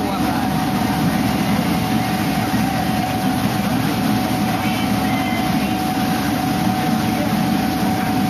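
Steady drone of a boat under way: engine rumble and rushing noise with a constant thin whine held through.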